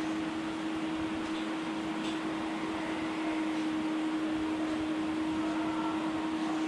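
Electric pedestal fan running steadily: a constant airy noise with a steady hum.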